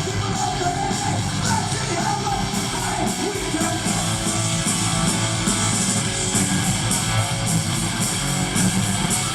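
A hardcore punk band playing live at full volume: distorted electric guitar, bass and pounding drums, with shouted vocals over the first few seconds.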